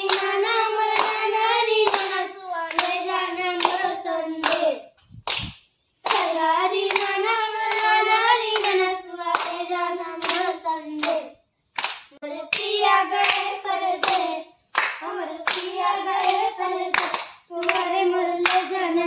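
Girls singing a Chhattisgarhi Sua folk song together in long phrases, clapping in a steady rhythm of about two claps a second. The singing breaks off briefly between phrases while the claps carry on.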